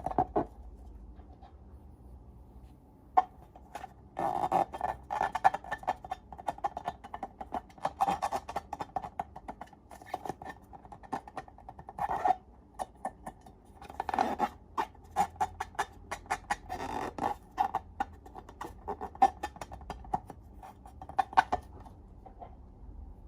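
Slime being handled and squished by hand, giving dense, irregular sticky clicks and crackles that come in clusters with short quieter gaps.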